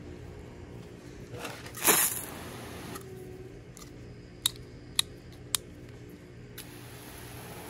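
A garden hose and its pistol-grip spray nozzle being handled: a short rushing burst about two seconds in, then three sharp clicks about half a second apart, over a steady low hum.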